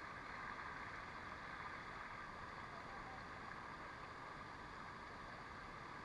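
Steady rush of flowing water from a waterfall cascading over rock.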